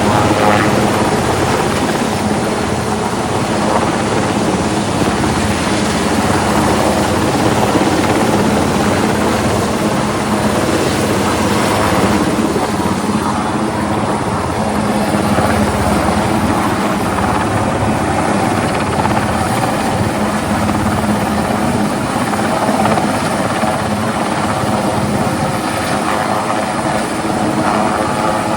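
Helicopter flying, its rotor and engine making a loud, steady noise throughout.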